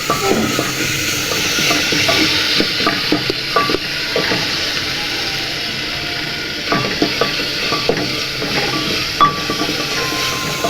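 Spice paste (masala) frying in hot oil and sizzling steadily, with a spoon scraping and knocking against the pan as it is stirred. This is the bhuna stage, where the spices are fried down until the oil separates.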